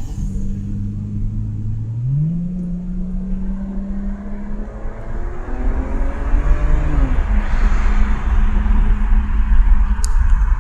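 BMW 335i's turbocharged straight-six pulling as the car accelerates, heard from inside the cabin. The engine note steps up in pitch about two seconds in, then a rush of tyre and wind noise grows louder as speed builds.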